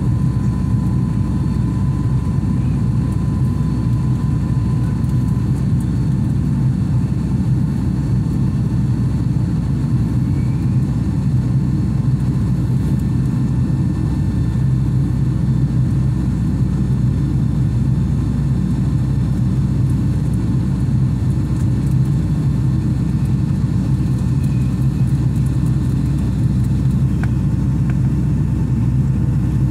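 Steady low cabin drone of a Boeing 757 in its climb, the jet engines and rushing air heard from inside the passenger cabin.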